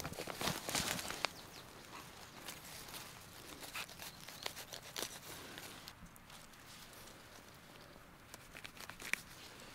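Rustling and crackling in dry leaves and twigs, with scattered small snaps. Busiest in the first second or so, then sparser, with one sharper click about nine seconds in.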